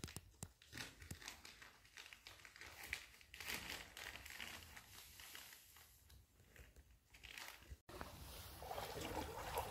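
Faint rustling and crinkling with scattered small scuffs and ticks, very quiet overall; the sound drops out for an instant near the end, and a soft hiss follows.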